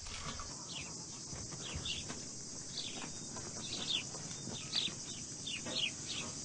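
Rural outdoor ambience: a steady high drone of insects with a bird giving many short, falling chirps, coming more often in the second half.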